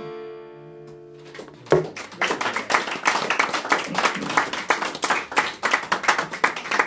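The last chord of an acoustic guitar rings out and fades. About a second and a half in there is a single thump, and then the audience applauds with a quick patter of many claps.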